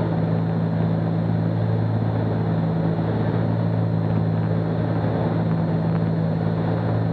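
Steady drone of a Cessna 310's two piston engines and propellers in flight: a low, even hum that holds its pitch.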